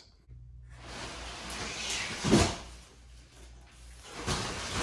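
Large cardboard box scraping and sliding as it is lifted off its contents, with a thump about two seconds in and louder rubbing near the end.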